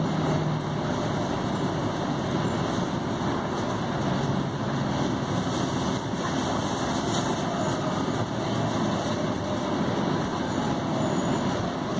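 Steady engine and road noise inside the cabin of a moving city bus, with a low engine hum that comes and goes.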